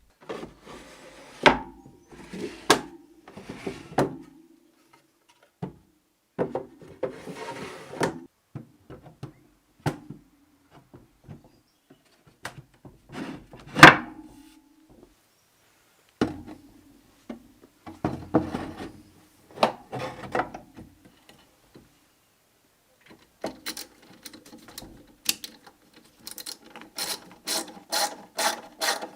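Wooden cabinet parts rubbing and scraping in short strokes of a second or two, with knocks, one much louder about halfway. Near the end comes an even ratcheting, about three clicks a second.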